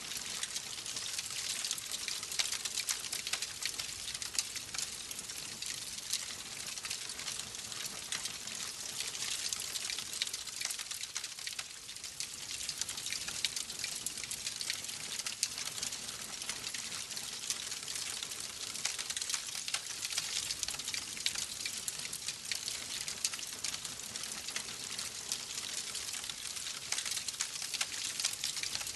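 Wood fire crackling steadily, a dense patter of many small pops and snaps with no large ones.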